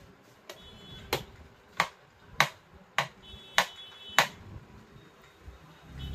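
Six sharp taps at an even pace, about one every 0.6 seconds, then they stop.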